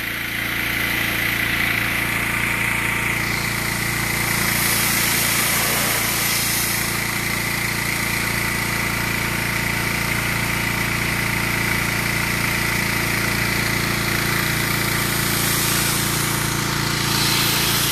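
Gas-engine pressure washer running steadily under load, with the hiss of the water jet, which grows stronger about three seconds in.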